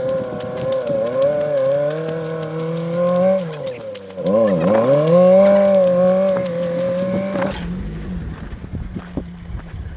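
Off-road vehicle's drivetrain whining under heavy load. The pitch sags sharply and recovers about halfway through, then the sound cuts off abruptly.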